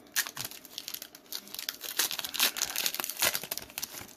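Foil wrapper of a Pokémon trading-card booster pack crinkling and crackling as it is torn open by hand.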